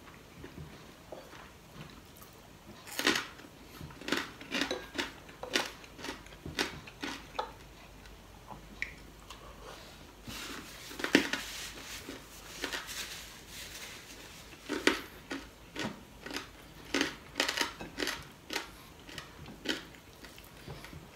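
Close-up eating sounds of a man eating rice and kare-kare with his hands: chewing and mouth smacks in short, irregular clicks, with a few louder clusters, including one about halfway through.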